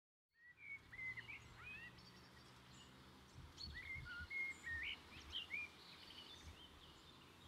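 Faint woodland birdsong ambience: several birds chirping and whistling in short notes, fading in about half a second in.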